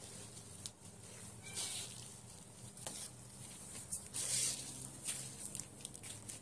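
Quiet rustling of tissue paper and light taps from hands handling things, with a short high squeak about one and a half seconds in.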